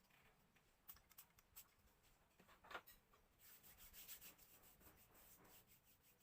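Near silence with faint rustling and a few light clicks, like things being handled. The loudest is a short scrape about two and a half seconds in, with denser rustling in the second half.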